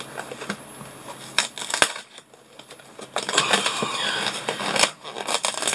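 Cardboard advent-calendar door being picked and pried open by hand with a small metal tool: scratching and rustling of card with a few sharp clicks and taps, two clicks about a second and a half in and a longer stretch of scraping past the middle.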